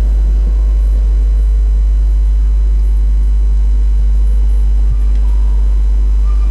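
A loud, steady low hum with no break, and faint short higher tones near the end.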